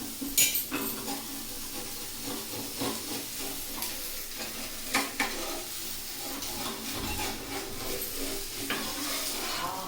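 Oil sizzling steadily under a dosa frying on a hot tawa, as the oiled dosa browns. A few sharp clicks sound over it, the loudest about half a second in and about five seconds in.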